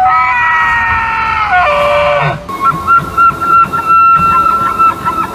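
Bull elk bugling: a long high-pitched call that drops in pitch about two seconds in, then a second call, a steady high whistle broken by a rapid run of pulses.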